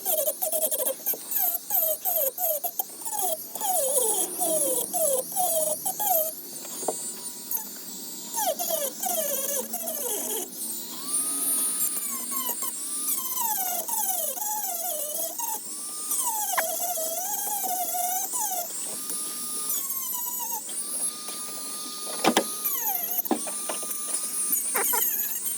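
Dremel rotary tool with a sanding drum grinding plastic. Its motor whine keeps dropping in pitch as the drum bites into the material and climbs back when it spins free, over a steady gritty hiss.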